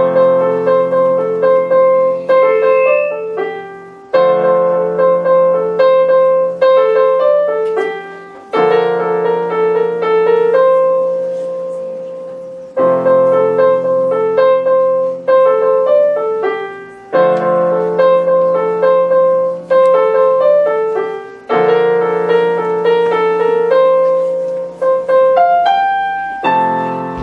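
Solo piano played on a digital piano: a repeating phrase of quick melody notes over held bass notes, each new phrase struck about every four seconds.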